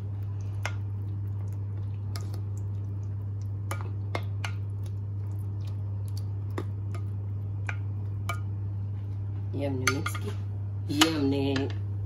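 A spoon stirring fried dumplings into yogurt in a ceramic bowl: scattered light clicks and knocks of the spoon against the bowl, over a steady low hum.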